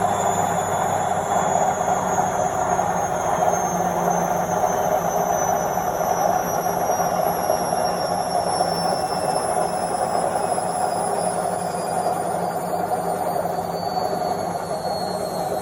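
Washing machine on its spin cycle: a steady whooshing rumble of the spinning drum with a high motor whine that slowly falls in pitch.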